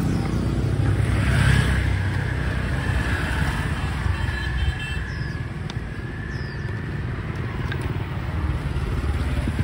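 Motorbike and road traffic noise: a steady low rumble of engines and tyres.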